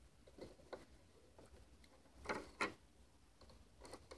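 Faint, scattered clicks and light rustles of handling, with two louder short ones a little after two seconds in.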